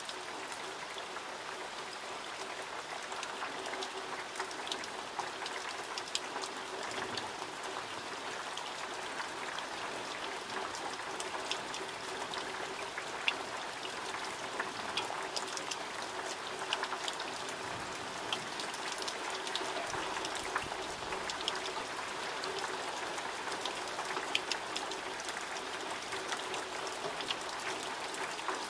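Steady summer rain falling, with many individual drops ticking on nearby surfaces.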